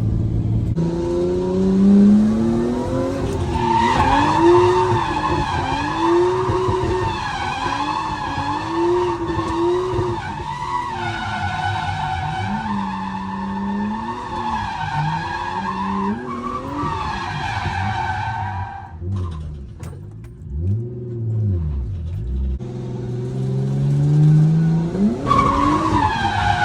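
Nissan R32 Skyline drifting: the engine revs rise and fall with the throttle while the tyres squeal steadily. Both ease off for a few seconds about two-thirds of the way through. The revs then climb again and the squeal returns near the end.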